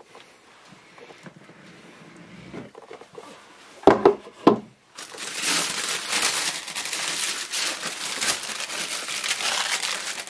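Tissue paper crinkling and rustling as it is folded open inside a shoebox, loud and continuous over the second half. Two sharp knocks come about four seconds in, before the crinkling starts.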